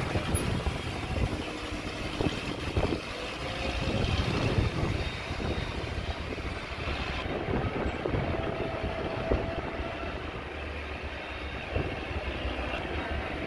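Heavy earthmoving machinery running, with frequent metallic clanks and knocks and a few short squeals.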